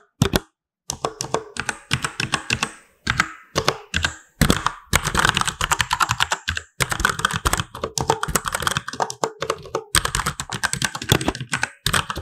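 Typing on a Cherry MX Board 8.0 mechanical keyboard: rapid key clicks in quick runs, broken by brief pauses.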